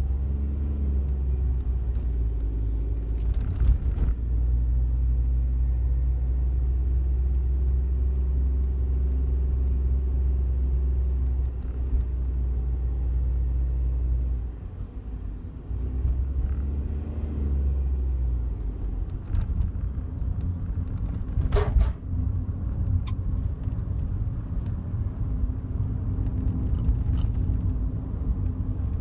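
Inside the cabin of a Daihatsu Wake kei car: a steady low engine drone that shifts a few times and turns into rougher road noise after about 19 seconds, with a few brief sharp clicks. The car has a buzzing rattle from the front of the passenger side.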